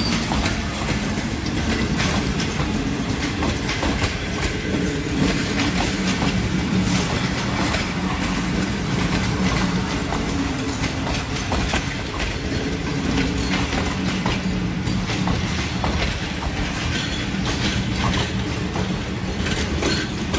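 Pakistan Railways passenger coaches rolling past on the adjacent track: a steady rumble with the wheels clicking over the rail joints.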